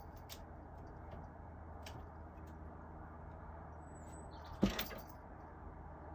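A house cat landing from a window sill onto a desk: one thump a little over halfway through, over a steady low hum, with a few faint clicks.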